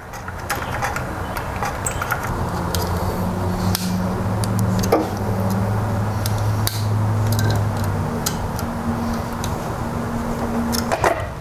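Light metal clicks and ticks of a hex key turning the small Allen bolts that hold the distributor rotor on a BMW M20 engine, over a steady low hum that runs throughout.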